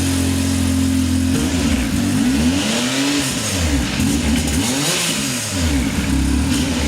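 Yamaha 1000 engine on its stock OEM header and exhaust, idling and then revved several times, each rev rising and falling in pitch, before settling back to idle near the end; this is the stock exhaust sound before the full exhaust and tune go on.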